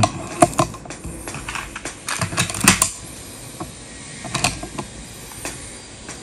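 A scattered run of small clicks and knocks from an air rifle and scope being handled and shifted on their rest, bunched and loudest about two and a half seconds in.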